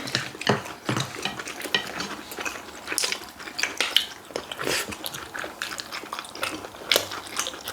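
Eating utensils clicking and tapping irregularly against plates and bowls during a meal.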